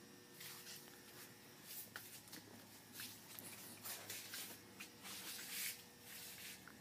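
Faint scuffs and rustles of a person walking slowly, about one every second or so, with a few light clicks.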